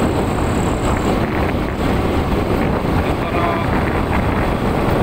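Steady rumble of a moving vehicle's road and engine noise, with wind buffeting the microphone.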